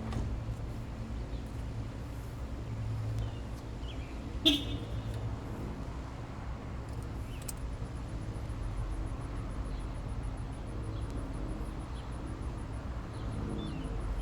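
Steady low outdoor rumble of distant traffic, with one sharp metallic clink about four and a half seconds in as parts are handled during a brake pad change.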